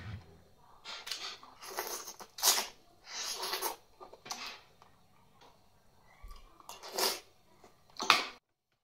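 A person eating: a string of short, irregular chewing and mouth noises, the loudest about two and a half and seven seconds in. The sound cuts off suddenly near the end.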